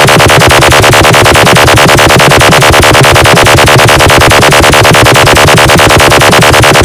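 Loud, heavily compressed electronic DJ track: a rapid, evenly pulsing buzzy synth over deep bass, with no break.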